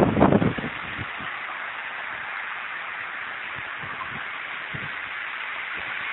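Steady hiss of wind on the microphone, with a short louder buffet in the first half-second and a few faint low thumps later.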